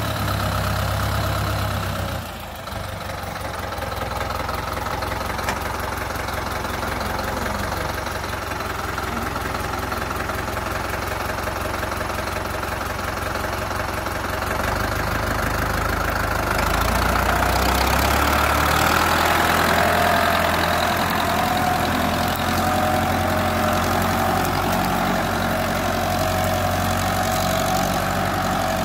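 1972 Ford 5000 tractor engine running steadily under load while pulling a furrowing plough through the field. It dips briefly about two seconds in and gets louder about two-thirds of the way through.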